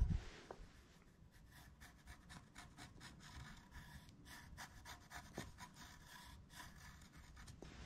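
Faint scratching of a pencil drawing on carved wood, in short, irregular strokes.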